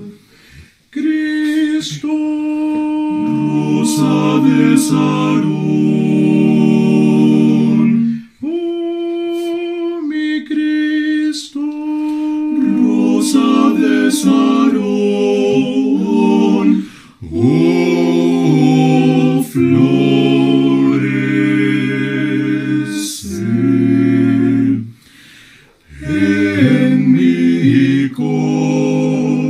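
Male vocal quartet of two tenors, baritone and bass singing a hymn a cappella in close harmony: held chords in long phrases, with short breaks for breath between them.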